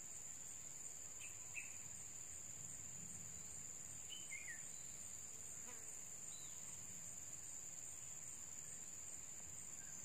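Insects trilling steadily at a high pitch, with a few faint short chirps about one and a half, four and six seconds in.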